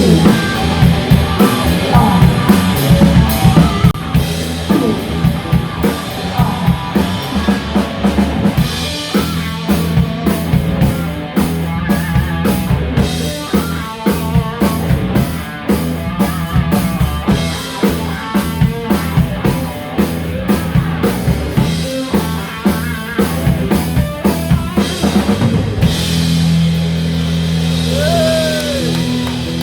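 Rock music with a drum kit and guitar. About 26 seconds in the drums stop and held low chords ring on.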